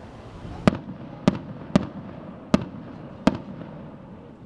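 Starmine aerial firework shells bursting: five sharp bangs, irregularly spaced about half a second to a second apart, each trailing off in a short rumble.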